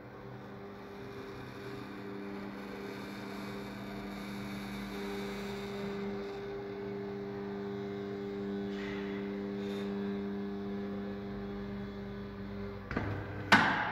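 Calypso swing-gate operator's electric linear actuator motor running as it drives the gate leaf on its travel-learning run: a steady hum that cuts off suddenly near the end, followed by a sharp knock.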